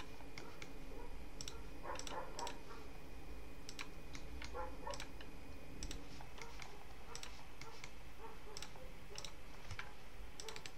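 Scattered, irregular clicks of a computer mouse and keyboard as the computer is worked, over a steady low hum of room noise.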